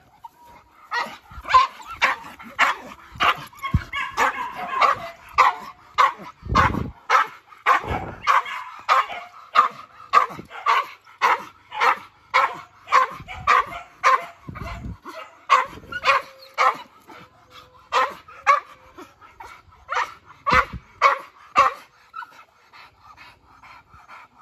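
Hunting dog barking steadily and repeatedly, about two barks a second, stopping about 22 seconds in.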